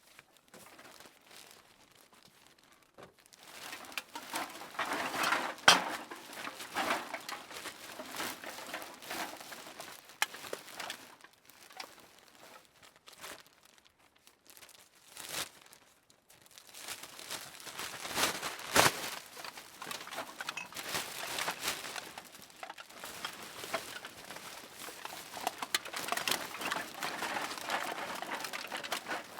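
Cans being put into a plastic bag: bouts of bag crinkling and rustling with sharp clinks of the cans knocking, broken by quieter pauses.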